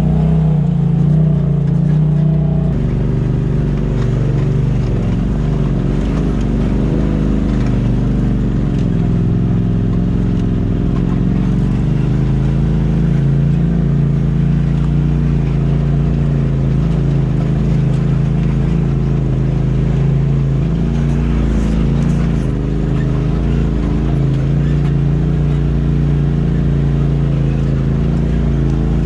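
Polaris RZR Turbo side-by-side engine running at low, gently varying revs while crawling a rough trail, heard from inside the cab. The engine note changes abruptly about three seconds in.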